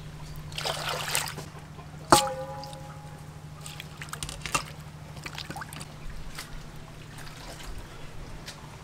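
Water splashing and squishing in a stainless steel bowl as hands wash shredded red cabbage. About two seconds in, a sharp knock on the metal bowl rings briefly, with a smaller knock a couple of seconds later.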